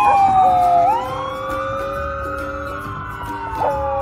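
A corgi howling along with a passing emergency siren. The siren's wail glides down in pitch and then swells slowly up and down, while the dog holds a long, steady howl that breaks off and starts again near the end.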